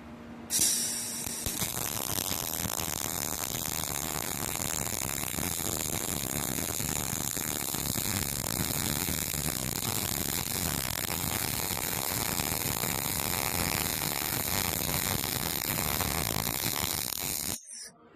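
MIG welding arc from a REHM Synergic Pro2 280-4 welder laying a bead. The arc strikes about half a second in with a sharp crack, then crackles steadily and stops abruptly near the end.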